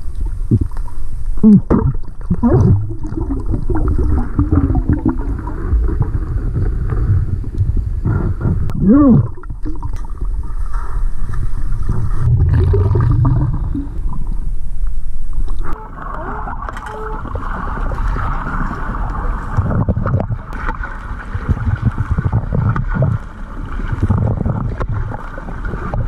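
Underwater water noise heard on a submerged camera: a loud low rumble with gurgling and bubble sweeps, stirred by a diver working the sand. About 16 seconds in the rumble drops and a higher, steadier hiss takes over.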